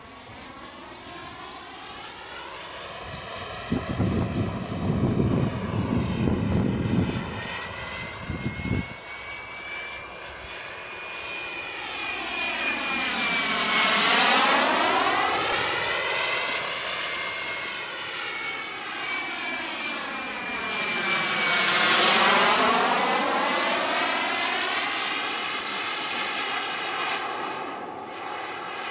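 Behotec J55 model jet turbine of a flying RC jet, a steady high whistle over a jet rush that swells and fades as the model passes by twice, loudest about 14 and 22 seconds in. A few seconds of low rumbling noise come in about four seconds in.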